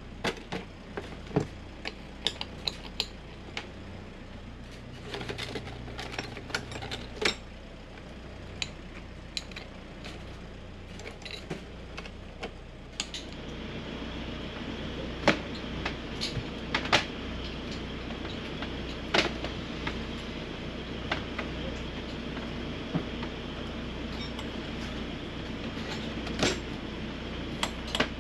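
Tools and hard plastic tool cases clattering and clicking as they are rummaged through and handled, with sharp knocks scattered throughout. A louder steady hum comes in about halfway.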